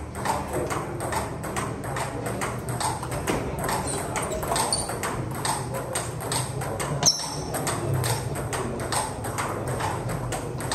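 Table tennis rally: the celluloid ball clicking back and forth off rubber bats and the table top in a quick, fairly even run of sharp clicks.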